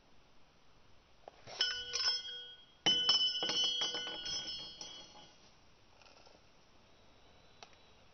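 Small metal parts of a cheap camera pen clinking and ringing as it is pulled apart, a loose metal piece dropping onto the wooden tabletop. There are two bursts of bell-like ringing, a short one about a second and a half in and a louder one about three seconds in that fades over about two seconds.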